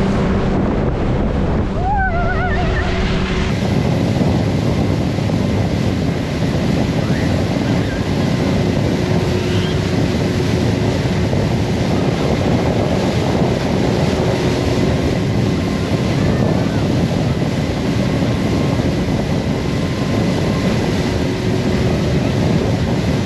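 Wind buffeting the microphone over the churning water of a motorboat's wake, with the boat's engine running steadily underneath.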